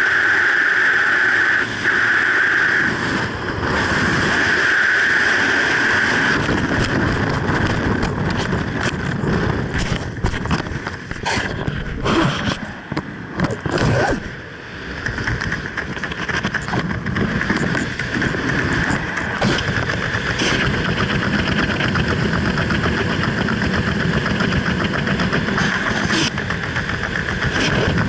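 Rushing wind on a skydiver's helmet camera: a steady whistling roar in freefall, turning rough and fluttery as the parachute deploys, then after a brief dip about halfway in, a steadier, somewhat quieter wind under the open canopy.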